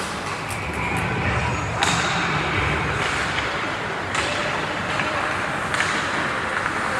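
Ice hockey play heard from rinkside: a steady wash of rink noise, with three sharp cracks about two, four and six seconds in.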